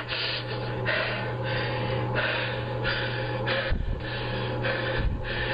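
A man breathing heavily in a steady rhythm, about three breaths every two seconds, over a steady low hum, with two dull bumps in the second half.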